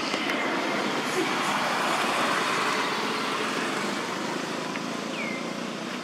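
Steady road-traffic noise that swells to its loudest about two seconds in, as a vehicle passes, then eases off. A short high chirp sounds near the end.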